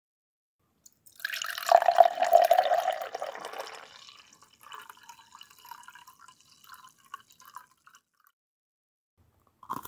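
Milk pouring into a tall glass: a strong splashing pour starts about a second in, then after a few seconds thins to a light, broken trickle as the glass fills.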